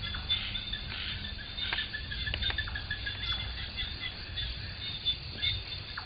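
Forest insects calling in a steady high-pitched chorus, with a few short sharp chirps over a low rumble.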